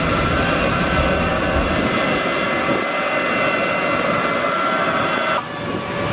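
Aircraft engine running: a steady turbine-like rush with a high, level whine, which cuts off abruptly about five seconds in.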